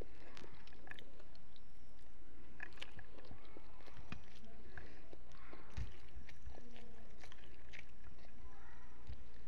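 A person chewing food with the mouth closed, making irregular small wet clicks and smacks.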